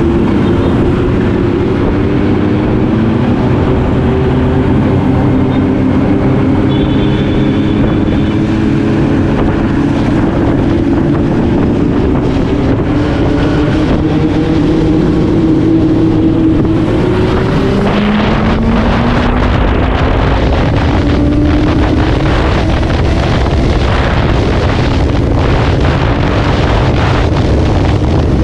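Benelli TNT 600i's inline-four engine pulling steadily through the revs, then dropping in pitch about two-thirds through as it shifts up and climbing again under acceleration. Heavy wind buffeting on the microphone builds after the shift.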